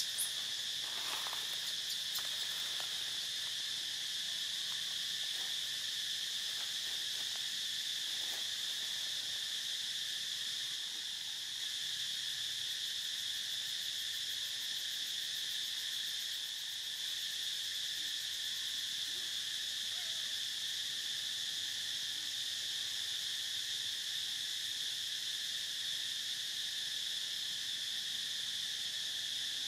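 Steady, high-pitched drone of an insect chorus, unbroken throughout, with a few faint clicks in the first couple of seconds.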